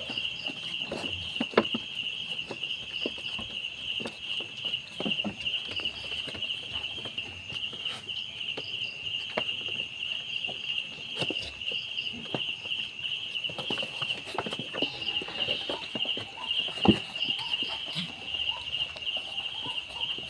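Crickets chirping steadily in a fast, even pulsing trill, with scattered clicks and knocks, two of them louder, one about one and a half seconds in and one late on.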